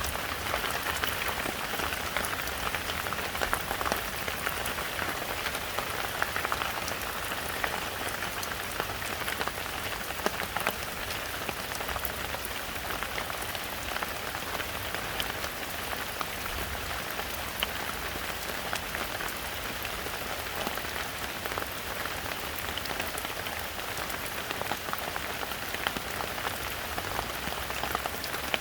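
Heavy rain falling steadily in a forest, a dense even hiss of rain filled with many small drop patters and splashes.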